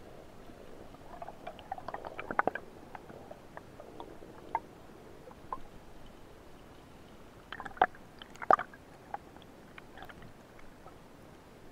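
Sharp clicks and knocks heard underwater over a faint hiss, in two clusters about two seconds in and around eight seconds, as a speared fish is hauled in along the speargun's shaft and line.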